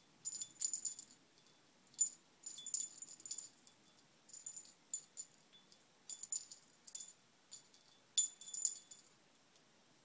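Small metal bell on a budgie's cage toy jingling in quick, irregular bursts as the bird plays with it, stopping about a second before the end.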